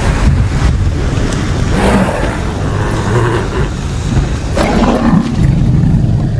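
Animated-film dragon sound effects: a deep, steady rumble with dragon growls rising over it, around two seconds in and again near five seconds.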